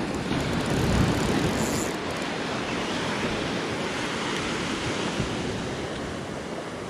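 Shore waves washing in and draining back, a steady rush, with wind on the microphone.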